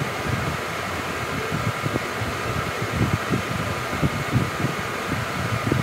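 Steady whirring hiss with a few faint steady tones, like a small fan running, and soft irregular low thumps throughout.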